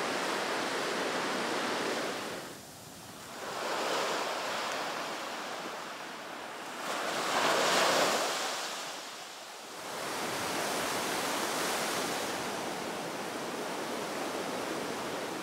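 Sea surf breaking and washing up a sandy beach, a steady wash that swells and ebbs with each wave, the loudest surge about eight seconds in.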